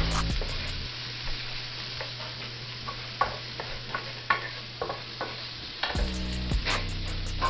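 Peas and carrots sizzling in oil in an electric skillet while a wooden spatula stirs them, with scattered light scrapes and taps of the spatula on the pan.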